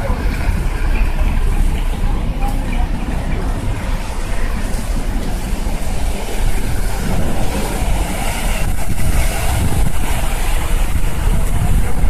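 Cars driving past on a rain-soaked road, their tyres hissing through standing water over steady falling rain, with a low rumble on the microphone.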